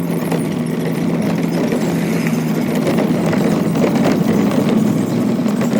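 A motor vehicle's engine running steadily: a constant low hum over a rumbling noise.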